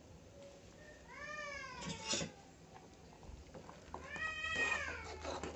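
A cat meowing twice, each call rising and then falling in pitch, about three seconds apart. Between and after the calls come a few sharp knocks of a spoon stirring in the pot.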